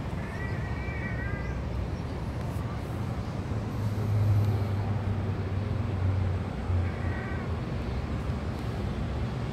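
A cat meowing twice: a high, wavering meow just after the start and a fainter one about seven seconds in. Underneath runs a low steady droning hum, louder through the middle.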